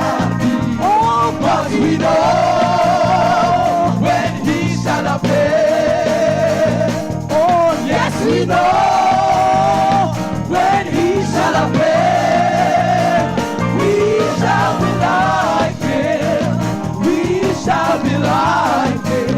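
Gospel worship song: a solo voice sings long held notes with vibrato over steady instrumental accompaniment.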